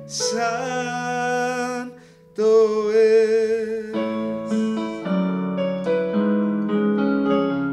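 Man singing two long held notes of a worship song over piano accompaniment; from about four seconds in the voice stops and the piano plays on alone.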